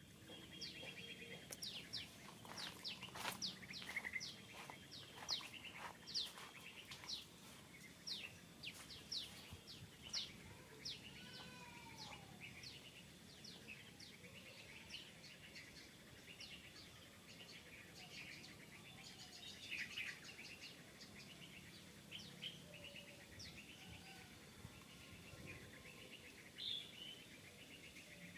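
Birds chirping: many short, high, downward-sliding chirps in quick series, thicker in the first half, over a steady high-pitched buzz.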